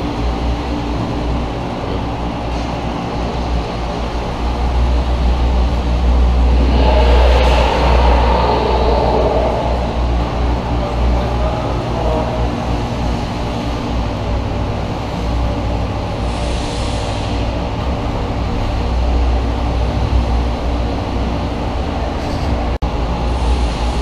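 A steady, loud low rumble with a faint even hum, swelling into a noisier wash for a few seconds about seven seconds in.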